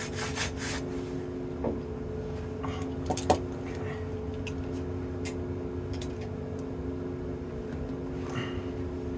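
Steady machine hum throughout, with scraping in the first second and a few sharp metallic clicks and knocks, the loudest about three seconds in, as the rebar pieces are cleaned and handled.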